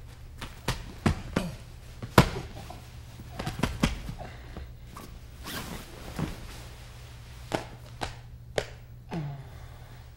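Irregular thuds, knocks and cloth rustling from people moving and grappling in a jiu-jitsu self-defence demonstration, the loudest thud about two seconds in, over a steady low hum from the tape.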